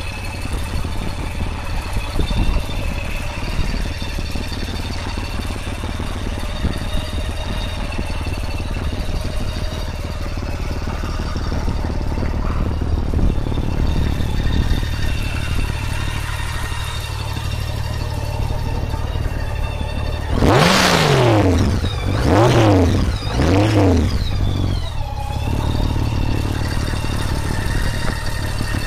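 Honda Valkyrie's flat-six engine idling steadily. About two-thirds of the way through it is revved three times in quick succession, the first rev the biggest, each one climbing and dropping back to idle.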